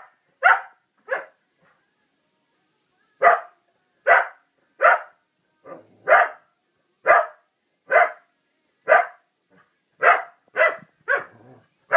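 A small dog barking over and over in short, sharp barks: two, a pause of about two seconds, then about one a second, coming quicker near the end. It is barking at the picture of a dog on a wall calendar.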